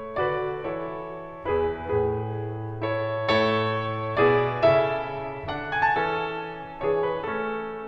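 Piano music: a slow melody of struck notes over chords, each note ringing and fading.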